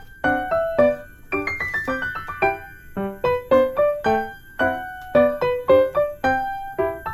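Background music: a light keyboard melody of short, separate notes in a steady rhythm.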